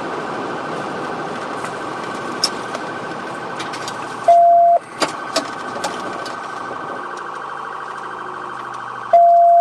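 Police car siren sounding in a rapid warble during a pursuit, with a low engine hum coming in about seven seconds in. Two loud half-second beeps break in, about four seconds in and again near the end.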